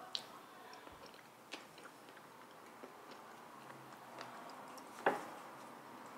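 A person eating a spoonful of chocolate ice cream: faint mouth sounds with a few small clicks, the sharpest about five seconds in.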